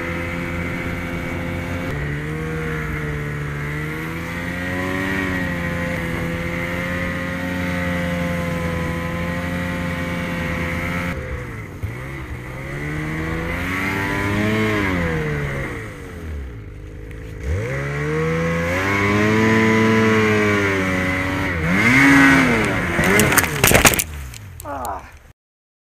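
Snowmobile engine running steadily, then revving up and down in several long swells as the throttle is worked through deep powder snow. Near the end there is a quick run of knocks and clatter as the sled ploughs into a small tree, and then the sound cuts off suddenly.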